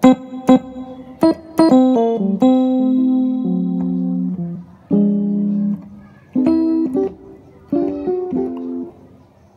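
Yamaha PSR-E433 keyboard playing chords in a layered electric-piano tone for praise songs, with the dual voice's release turned down to 6. The chords are struck sharply, some held for a second or two, in short phrases with brief gaps between.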